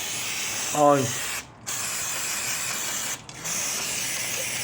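Aerosol spray can spraying in long bursts, a steady hiss that stops briefly twice, likely brake cleaner or lube going onto the bike's chain and cogs.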